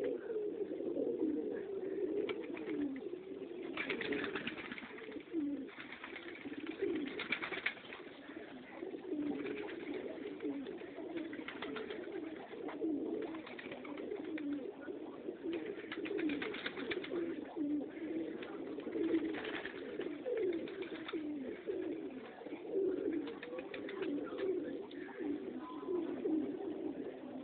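Many domestic pigeons cooing together in a continuous, overlapping chorus, with occasional short bursts of hiss.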